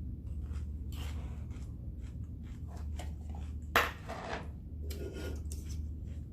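Someone eating a chicken Caesar salad: a run of small clicks and crackles from a fork in the bowl and from chewing crunchy lettuce and croutons, with one louder click about four seconds in.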